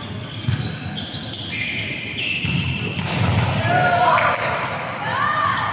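Indoor volleyball game in a large, echoing sports hall: a background of players' voices and chatter, with many short high-pitched squeaks. A few rising-and-falling calls come from about four seconds in.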